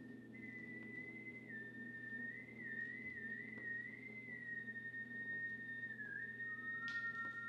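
A thin, high sustained tone, like a whistle or sine tone, wavering slightly in pitch over a low steady drone. About six seconds in, a second, lower tone enters beside it, and a short tick sounds near the end.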